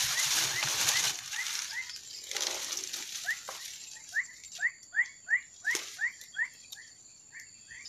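Leaves and dry stems rustling as someone pushes through dense undergrowth, loudest in the first second. Over it runs a series of short sharp chirps, two or three a second, loudest near the middle.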